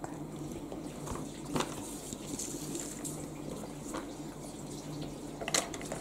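Sheets of paper and a glossy brochure rustling as they are handled and shuffled, with a few short crinkles and a cluster of them near the end, over a low steady hum.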